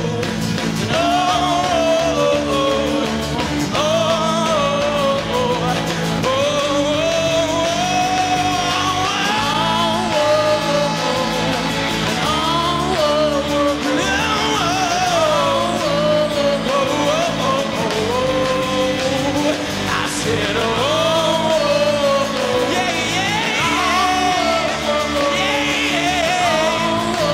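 Rock song played by a band, a lead voice singing a gliding melody throughout over steady guitar chords.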